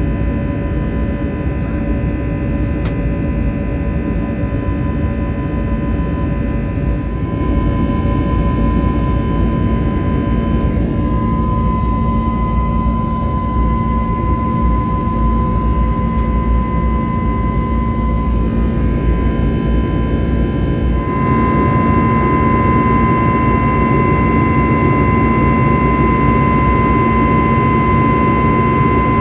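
Airbus A321neo's CFM LEAP-1A turbofan engines heard from inside the cabin during departure: a steady jet roar under a whine of several held tones. It steps louder about 7 seconds in and again about 20 seconds in.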